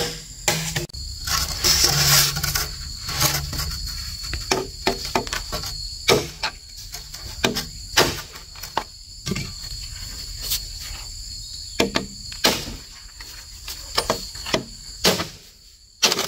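Irregular hollow knocks and clacks of green bamboo poles bumping against each other and the ground as they are handled and laid down. A steady high insect drone runs behind and stops about three-quarters of the way through.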